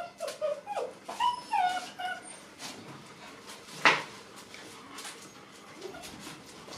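Puppy whining and yipping in a run of short, high calls over the first couple of seconds. A single sharp knock about four seconds in is the loudest sound.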